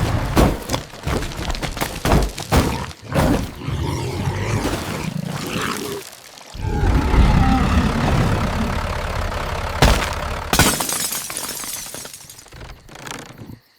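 Crashing and shattering sound effects: a string of sharp impacts and breaking, with one big crash about ten seconds in, fading near the end.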